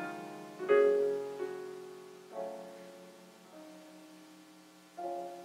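Soft piano-style keyboard chords, a new chord struck every second or so and left to ring and fade.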